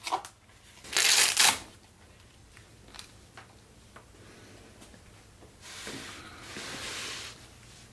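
Fabric tool pouch of a socket wrench set being opened and unfolded: a short loud rasp of fabric about a second in, a few faint clicks, then a longer, softer rustle of fabric near the end.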